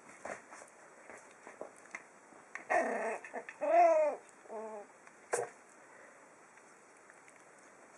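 Five-week-old puppies vocalizing as they play-fight: a short rough yip about three seconds in, then two whiny yelps, the first longer and louder, followed by a single sharp knock.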